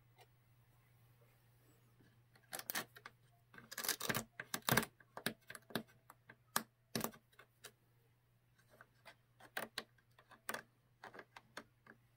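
Single-edge razor blade scraping and picking leftover hot glue off painted dollhouse wood trim: a run of irregular short scratches and clicks, thickest about four to five seconds in, over a faint steady low hum.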